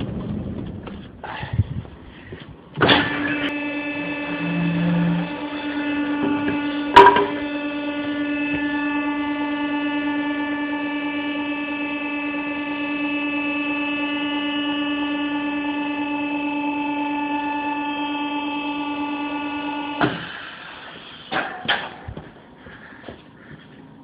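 A steady electrical hum at one constant pitch. It switches on with a click about three seconds in and cuts off with a click about twenty seconds in, with a sharp knock about seven seconds in and a few knocks around it.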